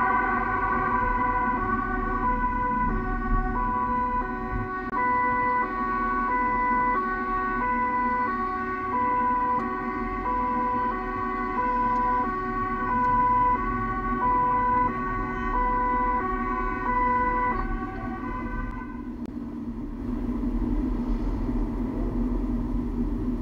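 Two-tone emergency-vehicle siren switching steadily between a high and a low note, each held for well under a second. It stops about eighteen seconds in, leaving the low rumble of the vehicle and the road, heard from inside a car in the convoy.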